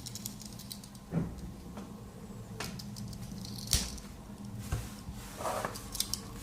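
Scattered small clicks, taps and scrapes of a plastic RJ45 Ethernet adapter being handled and pried apart, over a faint steady hum.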